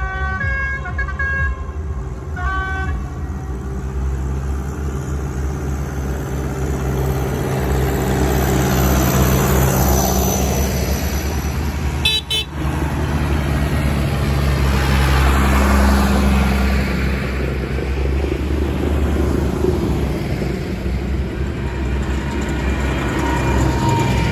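Diesel tractors driving past close by one after another, a steady low engine drone that swells as each one passes, with tyre noise on the wet road. A horn sounds in the first second and a half and again briefly a second later.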